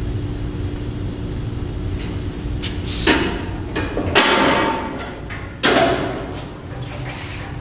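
Wheel-cover doors of a Jet band saw being swung shut: three clanks with a metallic ring, the loudest about four seconds in, over a steady low hum.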